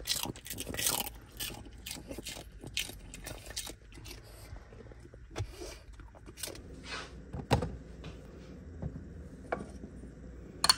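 Irregular small clicks, taps and scrapes, busiest in the first second, with a sharper knock at about seven and a half seconds and another right at the end, over a faint low steady hum.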